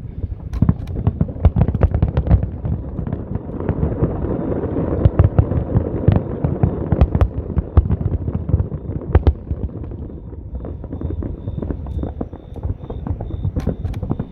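Fireworks display: rapid, overlapping bangs and crackles over a continuous low rumble, thickest around the middle.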